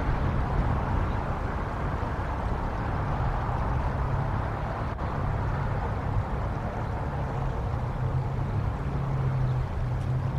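Wind buffeting the outdoor tree-mounted camera microphone: a steady low rumble with a rushing hiss.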